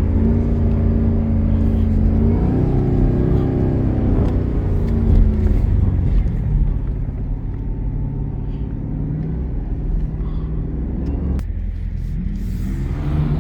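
2018 Chevrolet Camaro ZL1's supercharged V8 running on the road, its engine note stepping lower in pitch a couple of times. Near the end it drops off suddenly, then rises again.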